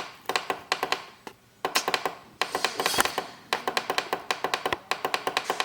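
Rapid runs of button presses on a digital clock, about six clicks a second with short pauses between runs, as the plus button steps the alarm time up minute by minute.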